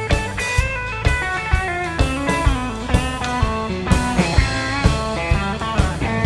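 Live rock band playing an instrumental break: a lead guitar melody line with bent notes over bass and a drum kit keeping a steady beat.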